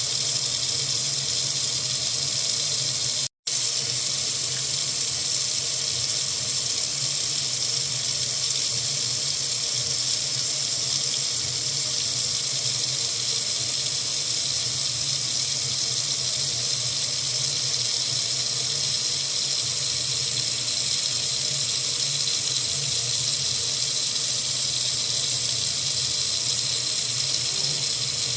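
Water tap running steadily into a sink, an even rushing hiss. The sound cuts out for a split second about three seconds in.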